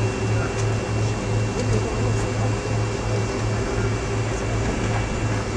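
Cabin noise inside a taxiing DC-9-40 airliner: a steady drone from its idling Pratt & Whitney JT8D engines and the cabin air, with a low hum that pulses about three times a second.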